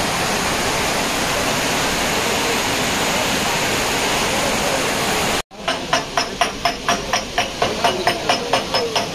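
Steady rush of a waterfall cascading over rock ledges. About five and a half seconds in, it cuts off abruptly and gives way to a fast, even clicking, about four ticks a second.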